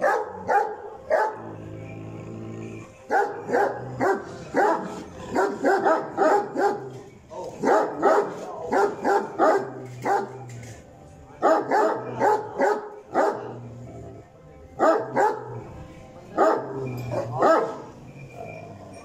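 Pakistani bully kutta dog barking repeatedly, in bursts of several quick, loud barks separated by short pauses.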